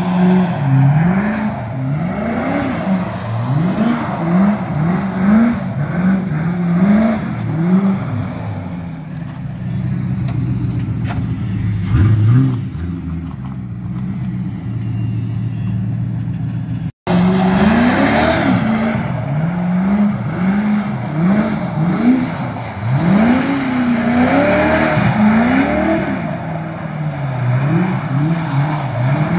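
Fox-body Ford Mustang engine revving hard, over and over, as the car is drifted on wet pavement: each blip climbs in pitch and falls back about once a second. The sound cuts out for an instant about two-thirds of the way through.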